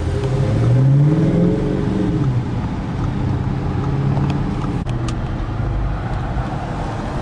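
Corvette Z06's LS7 V8 engine running under way: its pitch climbs over the first second or so, drops back, then holds steady.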